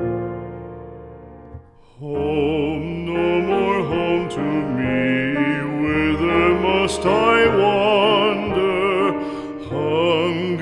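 Slow, tender music: a piano chord dies away, and from about two seconds in a melody with heavy vibrato plays over piano accompaniment, the introduction to a sentimental ballad.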